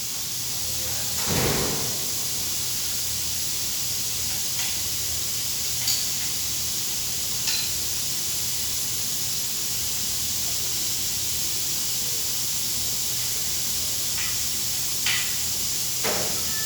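Steady hiss over a low hum, with a few short light clicks and taps scattered through it.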